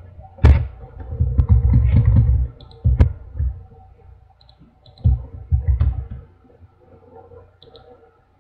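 A few sharp computer mouse clicks mixed with dull desk thuds through the first six seconds, then only faint sound.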